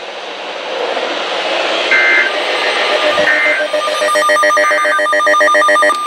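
Emergency Alert System broadcast audio between messages: radio static hiss, two short bursts of digital data tones about two and three seconds in, typical of the end-of-message code, then a rapidly pulsing buzzy tone for about the last two seconds.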